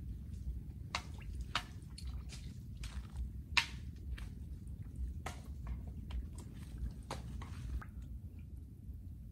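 Irregular sharp wet pops and clicks at the water surface, about a dozen, the loudest about three and a half seconds in, over a steady low rumble; typical of shark catfish gulping at the surface.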